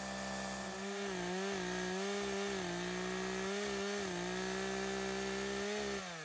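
Chainsaw running at high revs while cutting through a spruce log on a guide-track mill, its pitch wavering slightly under load. About six seconds in, the revs fall away.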